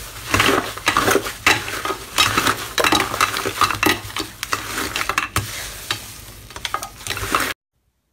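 Hands squeezing and kneading fluffy slime, a dense crackling with many quick sharp pops and squelches, which cuts off abruptly near the end.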